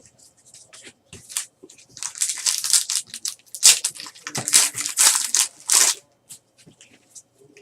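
Foil trading-card pack wrapper being torn open and crinkled by hand, a rough crackling that runs for about four seconds.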